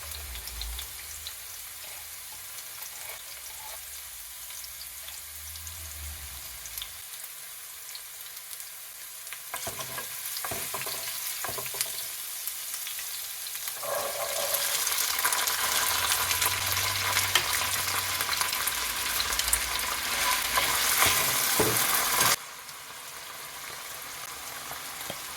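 Onions, garlic and ginger frying in oil in a pot, a steady sizzle with a few knocks from a stirring spoon. The sizzle gets louder a little past halfway and drops suddenly near the end.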